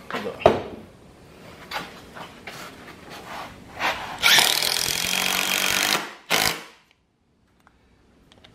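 A few knocks of wooden boards being handled and set in place. Then a cordless drill runs for about two seconds, driving a screw into the wooden frame, and gives one short second burst. The sound cuts off suddenly after that.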